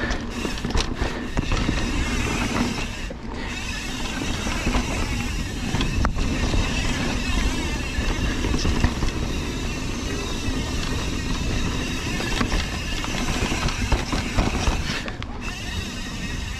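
Mountain bike riding fast down dirt singletrack: steady wind rush on the microphone and knobby tyres rumbling over the trail, with occasional sharp rattles from the bike over bumps.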